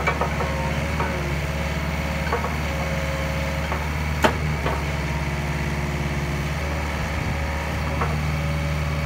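Yanmar ViO50 mini excavator's diesel engine running steadily while the boom and bucket are worked, with a higher hydraulic whine that comes and goes. Several short knocks from the working arm are heard, the loudest a little before halfway.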